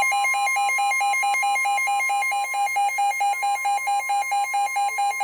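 NOAA weather radio receiver's electronic alert alarm beeping rapidly, about six warbling beeps a second, over the broadcast's fainter steady 1050 Hz warning tone. Together they signal an incoming severe thunderstorm warning.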